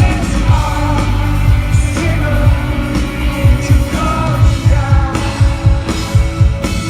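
Rock band playing live with a lead vocalist singing over loud drums and bass, with a steady beat.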